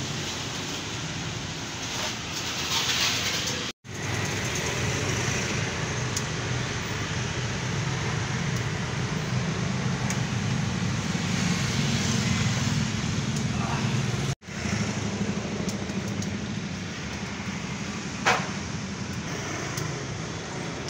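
Steady outdoor street ambience: a low traffic hum with faint background chatter, which drops out abruptly for an instant twice, about four seconds in and again about fourteen seconds in.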